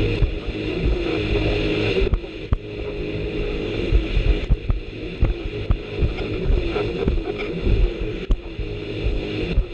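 Jet ski engine running at speed with a steady drone, over a rushing haze of wind and spray and irregular low thumps as the hull rides over the chop.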